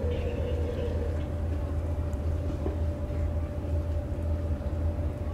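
Steady low engine rumble with a faint constant tone running through it.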